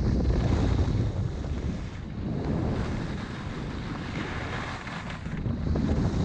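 Wind buffeting a GoPro action camera's microphone while skiing downhill, a rough, rushing noise that surges in the first second or so and again near the end, with the hiss of skis sliding over snow underneath.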